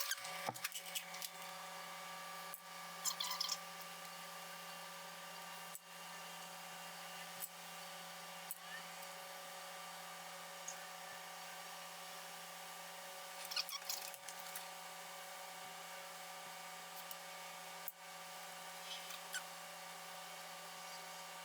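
A small electric power tool switches on and runs at a steady whine, dropping out briefly a few times, with light scraping and clicks of work against metal.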